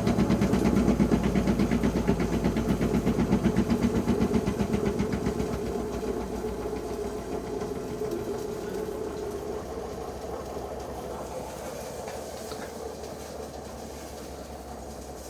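Washing machine drum spinning with a fast, even rhythmic knocking, sounding like a load of bricks inside. It is loud for about the first five seconds, then fades steadily as the spin winds down.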